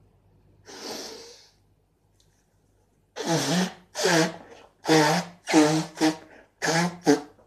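A person blowing their nose hard into a paper tissue. A breathy rush comes about a second in, then about six short, pitched honking blasts in quick succession from about three seconds in.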